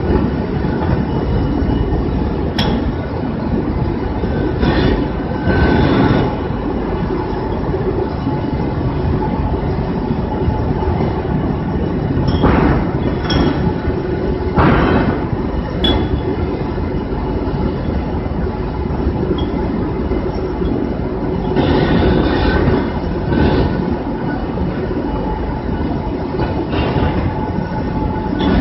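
Two-axis fettling grinder running, its abrasive wheel grinding a metal casting: a continuous dense grinding noise over a steady hum, with louder grinding passes now and then.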